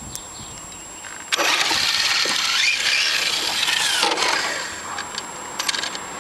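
Electric RC touring car, an Associated RC10 TC3, taking off about a second in: its motor whines, rising then falling in pitch, over a hiss of tyres on asphalt. The sound eases off after about three seconds.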